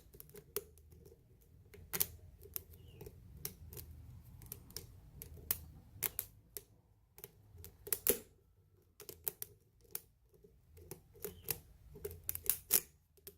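Irregular small metallic clicks and scrapes of a lock pick and tension wrench working the pins of a padlock during single-pin picking, with a couple of sharper clicks about two seconds and eight seconds in.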